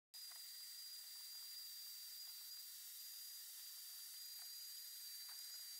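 Small wet/dry shop vacuum running, heard faintly as a steady hiss of rushing air with a thin high whine over it.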